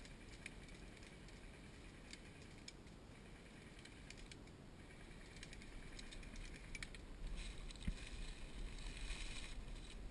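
Faint rustling and crackling with scattered light clicks, growing denser in the last few seconds, and a single short knock about 8 seconds in.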